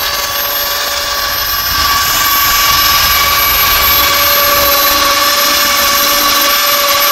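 Handheld plastic extrusion welder running steadily as it lays a bead of melted weld rod along a geomembrane seam. Its motor gives a steady high whine over a hiss, slightly louder from about two seconds in.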